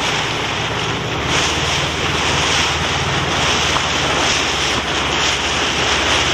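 A motorboat's engine running steadily, its low hum growing stronger about a second in, under wind rushing across the microphone.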